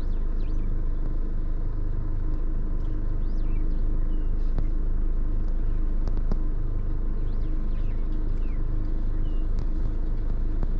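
Pickup truck engine running steadily.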